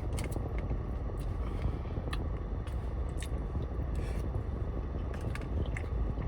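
A person chewing and biting food close to the microphone, with scattered sharp mouth clicks, over the steady low hum of a car's air conditioning running.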